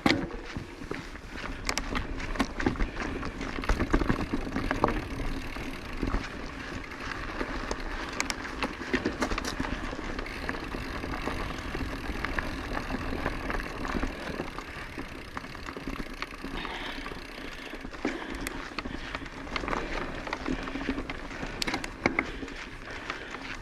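Orbea Occam mountain bike rolling over a rough dirt trail: steady rolling noise with frequent sharp knocks and rattles.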